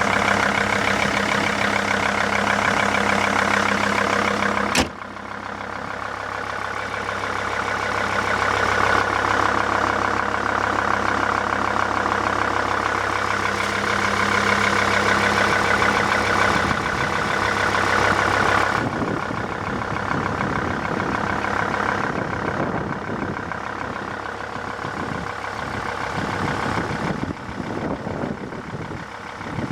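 Mercedes-Benz W211 engine running, with the knock that the owner reports. A sharp click about five seconds in, after which the sound drops and shifts.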